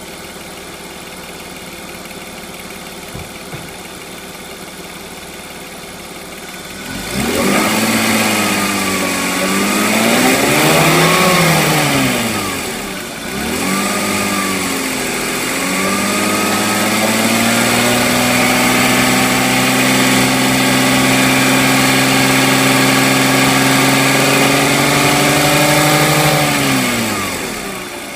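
BMW E46 320i's M52 straight-six engine idling. About seven seconds in it is revved up and down a few times, then held at steady raised revs and let fall back to idle near the end. The owner says it rattles at the exhaust manifold when throttle is given.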